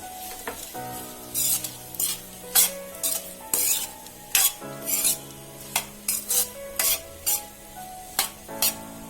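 A spatula stirring and scraping sautéing onions around a pan, about two strokes a second, with the onions sizzling lightly in the oil as they soften with salt.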